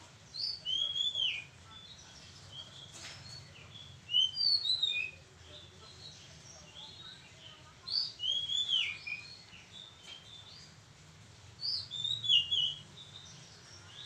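Oriental magpie-robin singing: four short phrases of clear whistled notes that rise and fall, about every four seconds.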